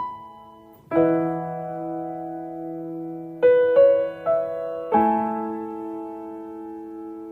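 Slow, gentle background piano music: chords struck and left to ring and fade, with a short run of three quicker notes in the middle.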